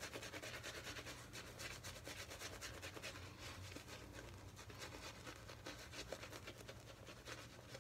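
Shaving brush scrubbing lather onto a bearded face: a faint, steady run of quick, scratchy brushing strokes.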